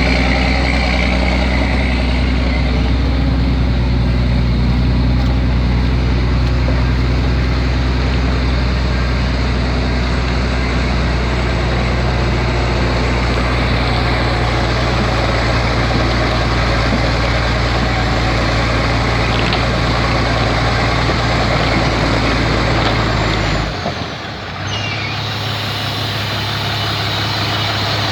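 BMC Pro 827 truck's diesel engine running at steady revs. About 24 seconds in, the sound changes abruptly, dipping briefly, before a steady engine sound carries on.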